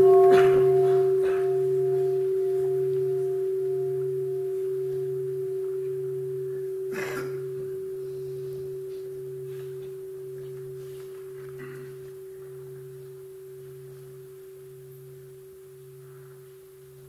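Buddhist bowl bell, the mindfulness bell, just struck once and ringing out with one clear tone that slowly fades, under a low hum that pulses about once a second. Invited before a question so that the assembly pauses to breathe.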